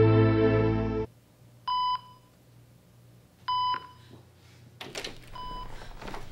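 Soap-opera theme music cuts off about a second in. Then a hospital heart monitor beeps three times, about two seconds apart, the third fainter.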